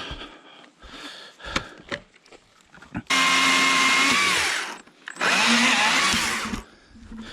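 Stihl MSA140C 36-volt battery chainsaw run in two short bursts, each a steady whine that drops in pitch as the chain winds down. A few light knocks come before them.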